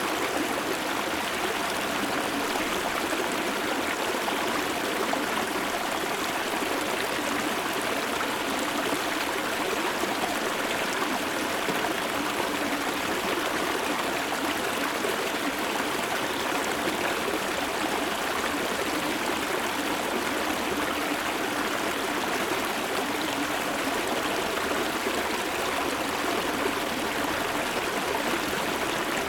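Shallow river stream flowing and trickling over its bed, heard close up, a steady rushing wash with no breaks.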